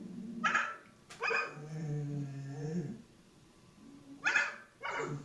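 A dog 'talking': a short bark, then a long, low, wavering vocal call lasting over a second, then two short sharp barks near the end.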